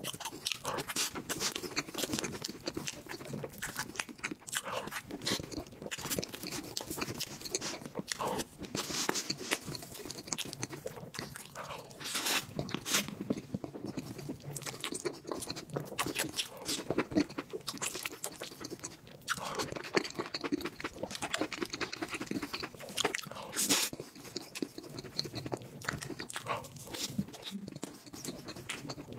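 Chewing and mouth sounds of a person eating whipped-cream sponge cake, with many short smacks and clicks throughout.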